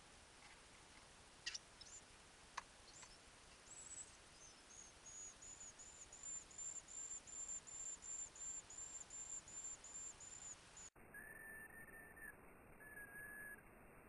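Nestling birds begging: a fast, even run of faint, high-pitched cheeps, about three a second, after a couple of sharp clicks near the start. Near the end it changes to two lower held notes.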